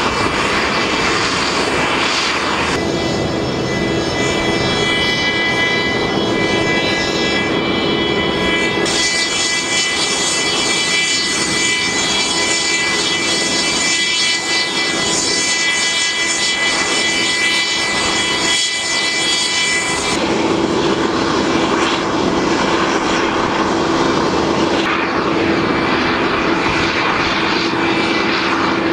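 Steady, loud aircraft turbine whine over a lower hum on an airport apron, changing in strength abruptly about three, nine and twenty seconds in.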